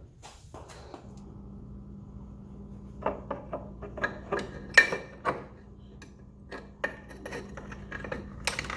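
Metal hand tools clinking and clicking irregularly as sockets and extensions are handled and fitted onto bracket bolts, the sharpest clink about five seconds in, over a steady low hum.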